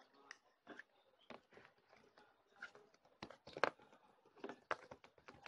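Fingers poking and squeezing a soft slime, giving faint scattered clicks and small pops, the loudest about three and a half seconds in.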